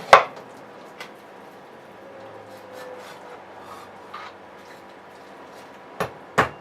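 Knife chopping down through a raw chicken's backbone on a cutting board: one loud chop just after the start, a light tap about a second in, then two sharper chops near the end.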